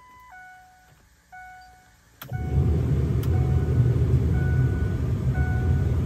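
A truck's warning chime dinging in short repeated tones. About two seconds in, a click is followed by a loud, steady rush of air as the cab's HVAC blower comes on, with the chime still sounding faintly beneath it.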